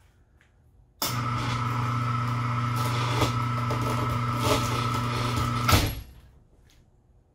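A Harbour Freight electric hoist runs steadily with a low hum for about five seconds, lowering a machine tool's spindle motor, then stops with a loud clunk.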